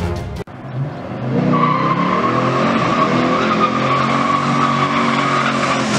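A car engine running at steady revs, joined about a second and a half in by a sustained high tyre squeal.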